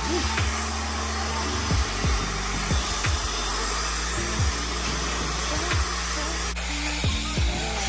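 Tideway high-speed hair dryer blowing steadily, with background music playing underneath.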